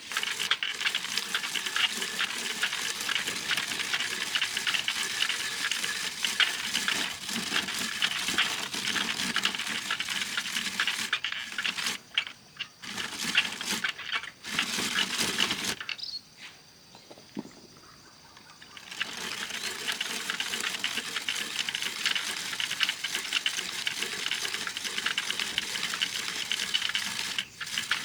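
Food sizzling and crackling as it fries in a pan. The sound drops out briefly a few times and goes quieter for a few seconds a little past the middle.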